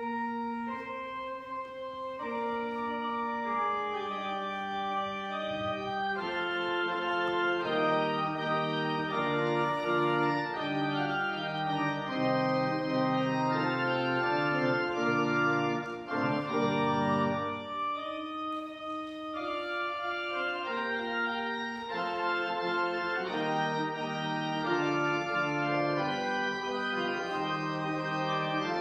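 Organ playing the postlude at the close of the service: a slow run of sustained, held chords that change every second or so.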